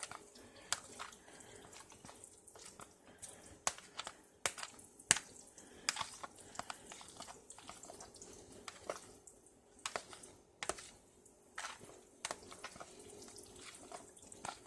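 A spoon stirring seasoned instant ramen noodles in a bowl: faint, irregular clinks and taps of the spoon against the bowl, with soft wet sounds from the noodles.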